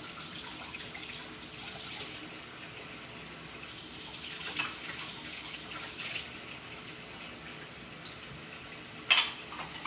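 Kitchen tap running steadily as dishes are rinsed, with a few light clinks and a sharp clatter of dishware about nine seconds in.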